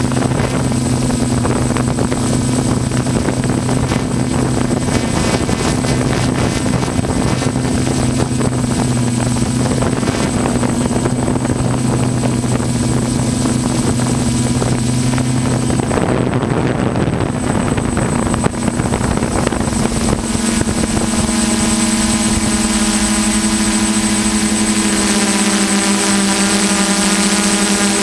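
Multirotor drone's motors and propellers humming steadily as heard from its own on-board camera, with a rushing noise of air over the microphone. The hum changes pitch about halfway through and eases slightly lower near the end.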